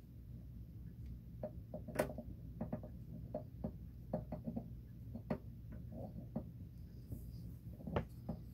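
Irregular small clicks and taps of a precision screwdriver turning a screw into a plastic model hull part, with a sharper click about two seconds in and another near the end.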